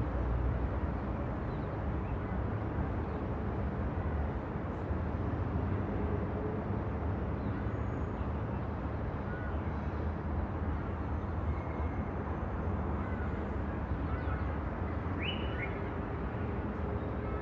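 Steady road traffic, a continuous low rumble of passing vehicles, with a few short bird chirps heard over it, the clearest a quick pair near the end.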